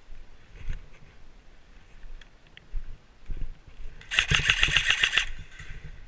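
An electric airsoft rifle (AEG) fires one full-auto burst of a little over a second about four seconds in: rapid, even shots over the gearbox whir. A few dull knocks from movement and gear come before it.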